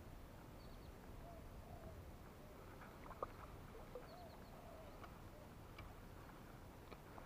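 Near silence: quiet outdoor air with a few faint bird calls and a single small click about three seconds in.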